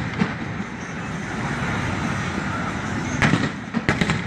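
Fireworks going off, with sharp bangs about three seconds in and again near the end over a steady noisy background.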